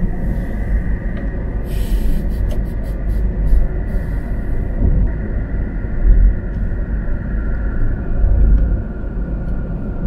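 Steady low road and engine rumble heard from inside a moving car's cabin, with a faint steady high tone over it and a quick run of light clicks about two seconds in.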